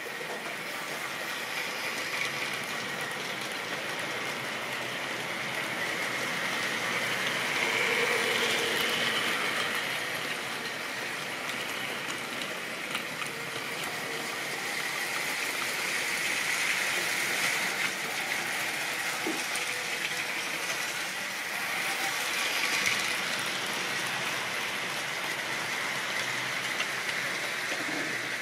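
Model railway train running along the track: a diesel shunter model hauling a rake of goods wagons, a steady rolling rattle of small wheels on the rails that swells louder several times as the wagons pass close by.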